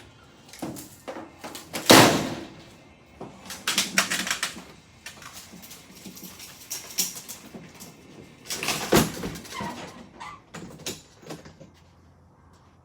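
Irregular knocks, bangs and clatters, like doors or gear being handled, the loudest about two seconds in, with a short squeak near ten seconds.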